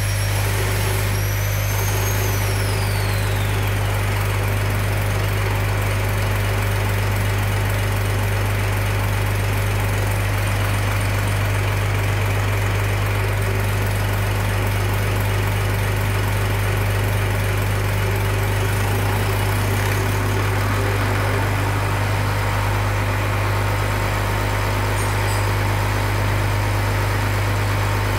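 Diesel injection pump test bench running steadily, its drive turning a diesel injection pump being set up, with a strong steady low hum and even mechanical noise. A high whine falls in pitch about two seconds in.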